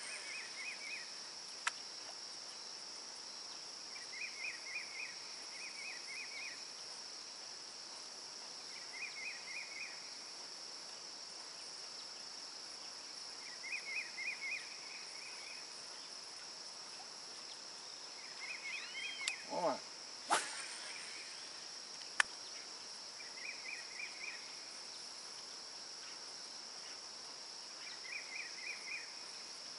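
Insects droning steadily and high, with short chirping trills repeating every few seconds. A brief falling swish and a couple of sharp clicks come about two-thirds of the way through.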